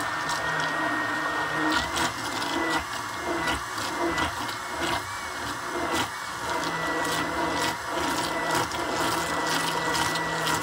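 Handheld immersion blender running steadily in a bowl of liquid, its motor giving a high whine that wavers slightly in pitch, with scattered clicks and splashes from the blade head churning. It is beating oil into an orange-juice dressing to thicken it.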